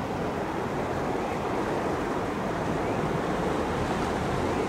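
Steady rushing outdoor ambience: wind buffeting the microphone beside open water, with no distinct events.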